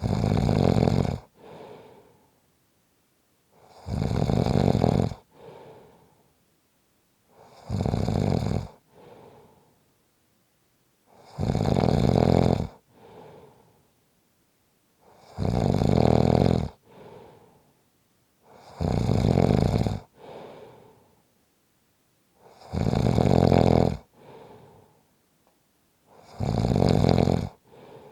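A sleeping person snoring in a steady rhythm: a loud, rattling snore about every four seconds, eight in all, each followed by a softer breath.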